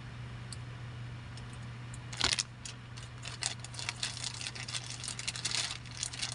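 A microphone cable and XLR connector being handled: a sharp click a little over two seconds in, then several seconds of clattering and rustling. A steady low electrical hum runs underneath.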